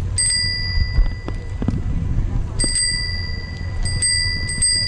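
A bicycle bell rung in three bouts of quick dings: near the start, about two and a half seconds in, and again from about four seconds in. Each ding rings on as a clear high chime over a low rumble.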